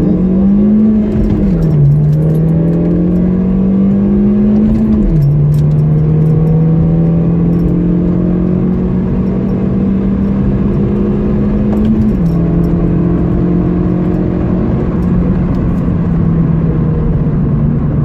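Opel Corsa four-cylinder engine accelerating hard through the gears. Its pitch climbs in each gear and drops sharply at three upshifts, about a second and a half, five and twelve seconds in. Each gear takes longer to climb than the last.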